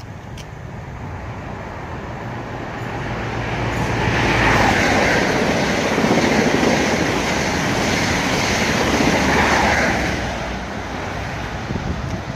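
A GWR High Speed Train (InterCity 125) with Class 43 power cars passing through the station at speed. The rush and rumble of wheels and air build up over the first few seconds, stay loudest for about six seconds, then fade away.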